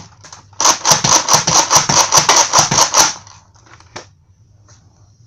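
Rapid run of sharp plastic clicks from a Nerf Mega Rotofury toy blaster's mechanism, about six a second for roughly two and a half seconds, with a single click near the end.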